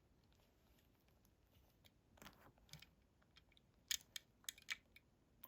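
Near silence broken by a few faint, sharp clicks, clustered around four seconds in: small die-cast toy cars being handled.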